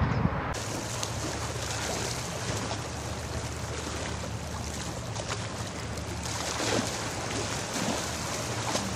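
Road traffic noise cuts off about half a second in. It gives way to waterfront ambience: a steady low machinery hum under a haze of wind and lapping water.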